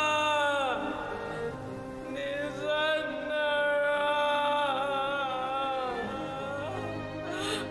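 Background score: a slow melody of long held notes that slide between pitches. One note falls away about a second in, and a new long note starts about two seconds in.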